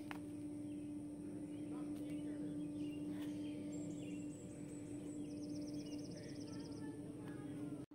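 Outdoor park ambience: a steady hum over a low rushing background noise, with faint bird chirps and a quick bird trill a little past halfway. It cuts off suddenly just before the end.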